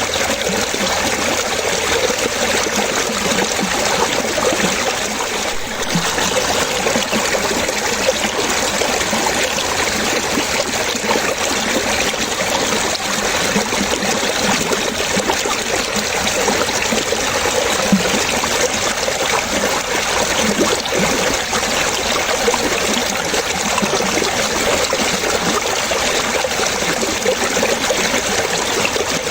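Running water splashing and trickling: a steady, even rush with no breaks.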